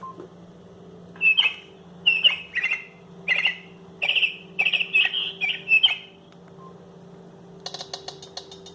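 Alcatel OT-757 mobile phone playing a birdsong ringtone through its small speaker: a run of short, high chirps for about five seconds, then after a pause a fast, even ticking begins near the end.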